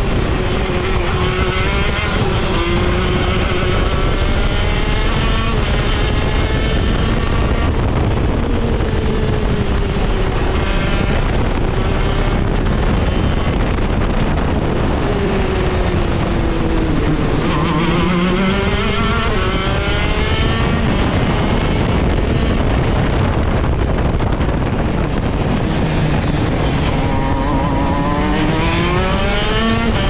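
Shifter kart engine running hard on track, its pitch climbing again and again as it revs up. It falls away twice, about halfway through and near the end, then climbs again.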